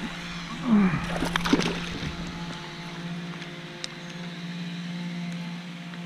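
A hooked bass splashing at the surface beside a kayak as it is drawn in and grabbed by hand, with a cluster of splashes between about one and two seconds in. A steady low hum runs underneath.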